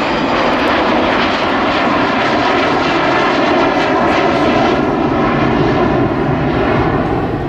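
Avro Vulcan XH558's four Rolls-Royce Olympus turbojets running in flight: a loud, steady jet noise with faint tones running through it.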